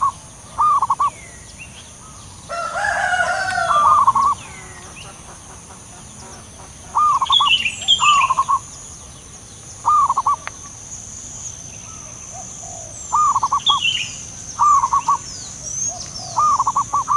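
Zebra doves cooing in short bursts of three or four quick rolling notes, repeated every few seconds, two birds answering each other. About two and a half seconds in, another bird gives a louder, harsher call lasting over a second; brief high chirps of small birds come and go.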